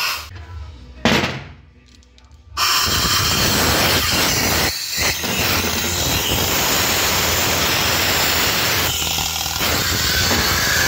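Compressed air hissing out of a ZF 16S181 gearbox's pneumatic shift unit under test: a short burst at the start and another about a second in, then a loud steady hiss from about two and a half seconds in, with a brief break near five seconds. It is the sign of a fault in the shift servo.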